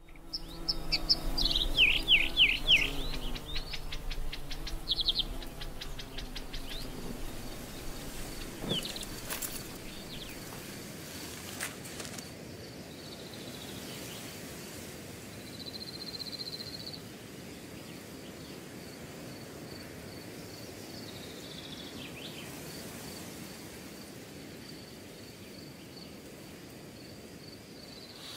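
Nature ambience: a bird sings a run of quick falling chirps in the first few seconds, then a steady high cricket trill carries on over a faint hiss.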